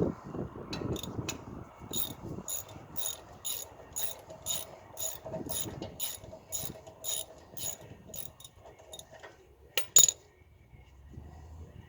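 Ratchet wrench with a 21 mm socket clicking in quick back-and-forth strokes, about two a second, backing out the brake caliper bracket bolts. A sharp metallic clank about ten seconds in.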